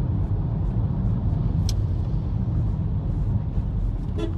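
Steady low rumble of a running car heard from inside the cabin, with one brief faint tick about a second and a half in.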